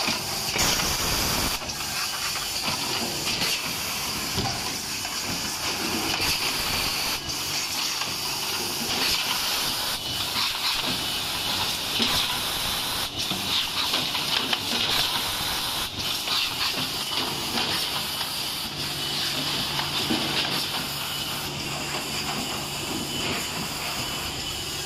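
Two-station bottle-cap foil liner inserting machine running: a steady hiss of compressed air, with a short click from its pneumatic cylinders every second or so.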